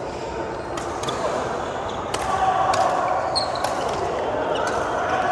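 Badminton rally: sharp hits of rackets on the shuttlecock, about seven in five seconds at irregular spacing, over a steady background noise of the hall.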